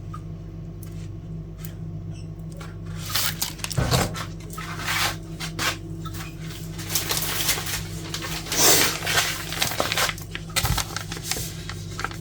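Packaging rustling and items being handled and set down on a table, in irregular bursts with a few knocks, over a steady low hum.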